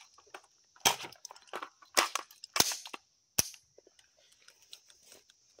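Sharp clicks and clacks of empty guns being worked in a dry-fire reload drill: an AR-15's trigger, magazine and controls handled. The four loudest strike about a second in, at two seconds, just after, and near the middle, with lighter ticks between.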